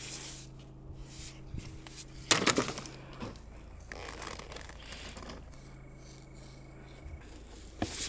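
PVC electrical conduit being handled and pushed into place with gloved hands: plastic rubbing and scraping, with a louder knock about two seconds in. A faint steady hum sounds underneath.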